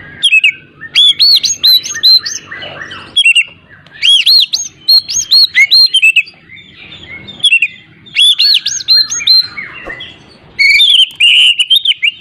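Oriental magpie-robin (kacer) singing in full voice: rapid, varied whistled phrases in four bouts separated by short pauses.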